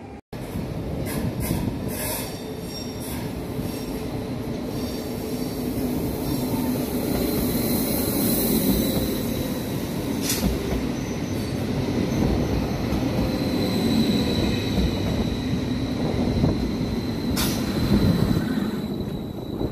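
Vy Class 74 (Stadler FLIRT) electric multiple unit running past along the platform: a steady low rumble of wheels on rail, with a thin high-pitched squeal that comes and goes and a few sharp clicks.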